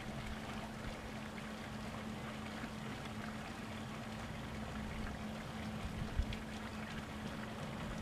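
Diesel train running: a steady low engine hum over an even rushing rumble, with one short knock about six seconds in.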